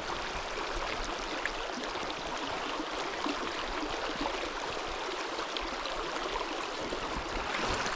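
Mountain stream water rushing steadily over rocks, a continuous even babble.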